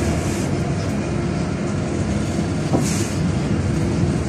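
Bus interior while driving: steady low engine and road rumble heard by the front doors, with a short hiss near the middle.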